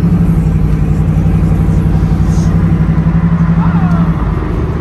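Car engine running at a steady speed, a loud deep pulsing rumble heard from inside the cabin, easing off about four seconds in.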